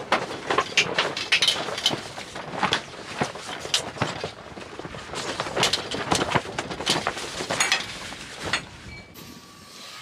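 Camper van roll-out awning being pulled out and set up by hand: its fabric rustling and flapping, with irregular clicks and knocks from the awning frame and poles. It goes quieter near the end.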